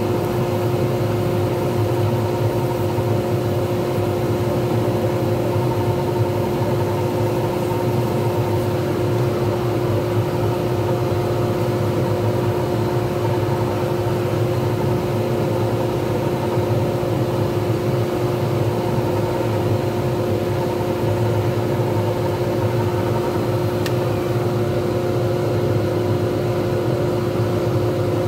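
Lathe running steadily at constant speed, spinning a resin pen blank: an even motor hum with a steady whine.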